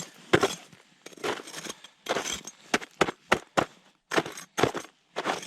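Snow and a thin crust of ice crunching in a run of short, irregular crunches.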